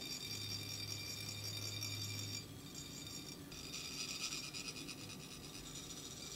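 Metal chak-pur funnels being rasped to trickle coloured sand onto a sand mandala: a high, metallic scraping with a ringing edge. It thins out a little before halfway and comes back as quicker, scratchier strokes.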